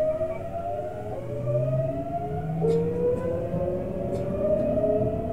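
Tokyu 7700 series electric train running, heard from the front cab: the inverter-driven traction motors give a whine that climbs in pitch, drops back and climbs again in steps as the train gathers speed, over the rumble of the running gear.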